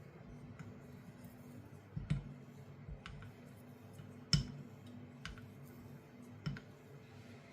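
Straight razor being honed on a sharpening stone: faint irregular clicks and taps of the blade against the stone, about a second apart, over a low steady hum.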